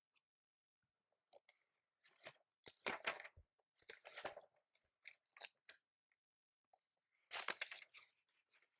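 Faint computer keyboard typing in short, irregular bursts of key clicks, with pauses between them.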